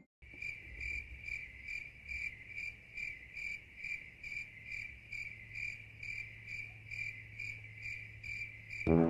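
Cricket-chirping sound effect: a steady, even, high chirp repeating about three times a second, cut in abruptly between stretches of music. It is the stock 'awkward silence' gag.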